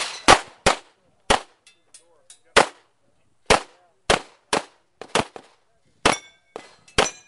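Pistol shots fired in rapid succession during a practical-shooting stage: about a dozen sharp cracks, several in quick pairs, with short pauses between groups.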